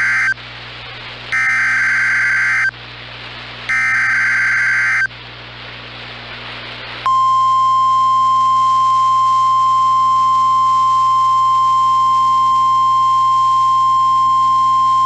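NOAA Weather Radio SAME digital header: the tail of one burst of warbling data tones, then two more, each about a second and a half long with short gaps between. About seven seconds in, the steady single-pitched 1050 Hz NOAA Weather Radio warning alarm tone starts.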